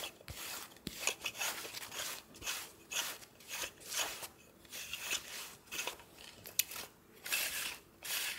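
Sticky lint roller rolled back and forth over a sweatshirt, a tacky rasping crackle with each stroke, about two strokes a second.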